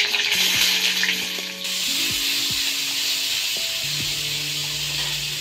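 Chopped onions frying in hot oil with mustard seeds and cumin, a steady sizzle that is stronger for the first second and a half and then settles. Soft background music with held notes plays underneath.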